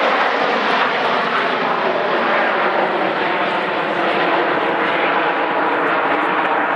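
Nine BAE Hawk T1 jet trainers flying in close formation, their Adour turbofan engines making a loud, steady rushing jet noise with a faint hum that slowly falls in pitch.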